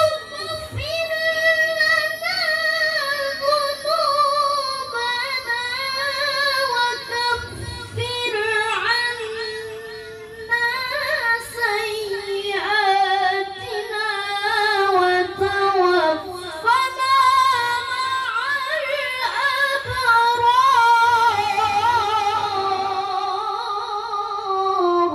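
A young child reciting the Quran in a high voice, with long, ornamented melodic phrases whose pitch wavers constantly and settles lower toward the end.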